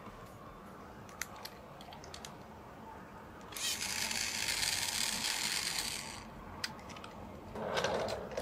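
A few small plastic clicks, then a battery-powered toy train's motor and gears whirring steadily for about two and a half seconds before stopping. A shorter burst of mechanical noise follows near the end.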